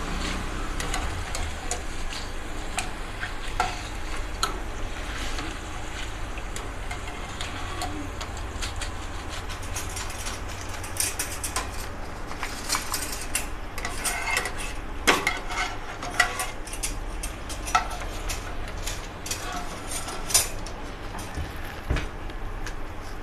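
Raw banana slices deep-frying in hot oil with a steady sizzle, while a wire-mesh slotted spoon stirs and scrapes in the metal pan. From about ten seconds in, frequent sharp clinks and taps of the wire spoon against the pan as the chips are scooped out.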